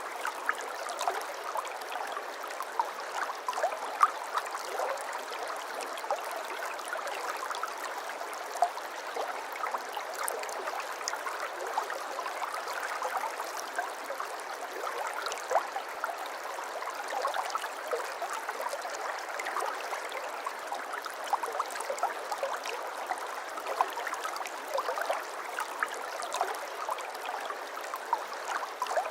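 Flowing water in a small stream babbling steadily: an even rush of water with many small, quick splashes and plinks and no deep rumble.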